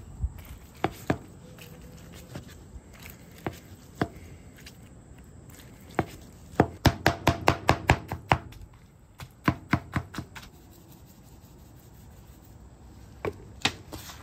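Meat cleaver chopping smoked brisket on a cutting board: scattered single knocks, then a quick run of strikes about six a second in the middle, a handful more just after, and two near the end.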